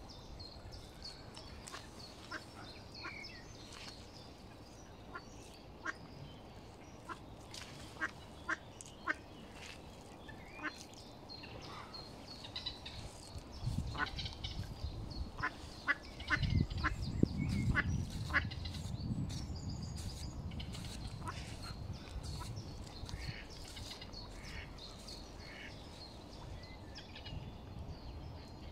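Mallard ducklings peeping: many short, high calls scattered through, with a low rumble for several seconds about halfway through.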